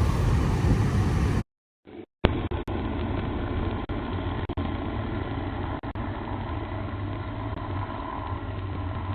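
Car engine running steadily while the car sits stuck in deep snow. The sound cuts out briefly about a second and a half in, then resumes duller.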